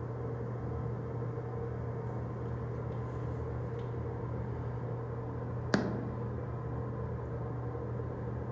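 Steady electrical hum of the powered-on kiosk's PC and fans, with one sharp click about six seconds in.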